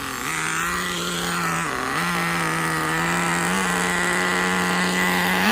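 Nitro RC car's small glow-plug engine running at a steady high note, dipping briefly about two seconds in and revving up near the end.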